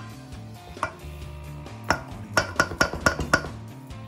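A utensil knocking against a stainless steel mixing bowl while mashing boiled potatoes, each knock leaving a short metallic ring: one knock about a second in, then a quick run of about six knocks in the second half. Background music plays underneath.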